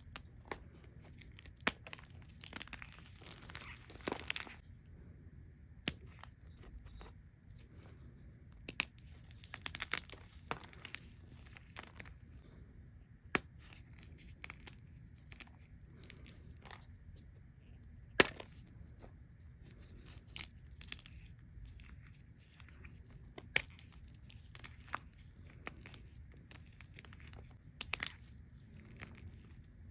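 Gym chalk being crushed and crumbled by hand close to the microphone: scattered crisp crunches and crackles, in denser runs at times, with a few louder sharp snaps, the loudest about midway.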